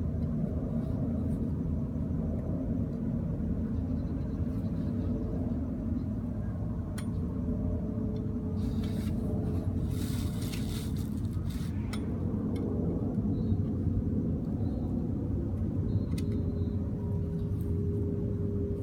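Handheld gas torch flame roaring steadily while heating a copper pipe joint for soldering. A hissing burst comes about nine seconds in and lasts about three seconds, with a few sharp clicks scattered through.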